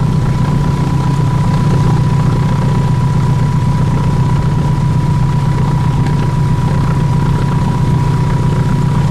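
Engine running steadily at an even speed, a loud low drone with a thin steady whine above it.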